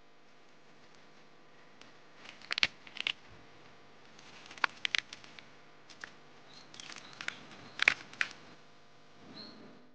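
Young shoots snapping and leaves crackling as wild tree buds are picked by hand, in three clusters of sharp snaps about two and a half, five and eight seconds in.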